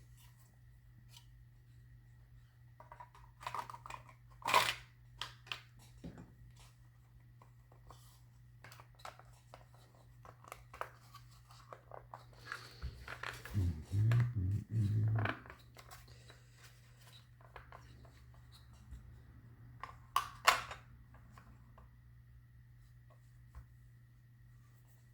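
Intermittent small clicks and taps of plastic housing parts and small screws being handled while a motorcycle instrument cluster is put back together, with a short low buzz about halfway through.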